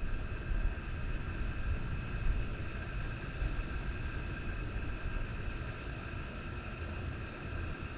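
Wind rumbling on the microphone, with a faint steady high whine underneath.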